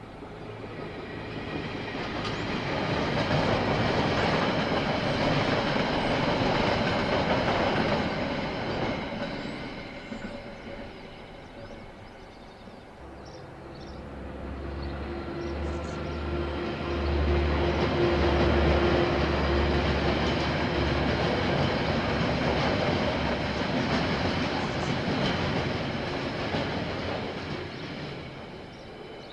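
A KiwiRail train passing, steel wheels rolling on the rails. The rolling noise swells to loud and eases twice. A diesel locomotive's engine drones low and steady for several seconds in the middle, and the sound fades out near the end.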